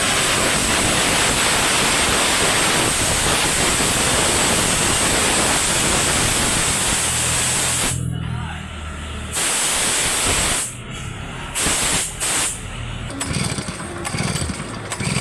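Pressurised spray hissing in one long steady blast of about eight seconds, then three shorter spurts, the kind of spraying done to clean a chainsaw during a service.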